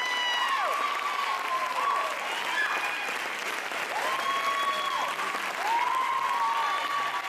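Audience applauding, with long high-pitched cheers rising and falling over the clapping several times.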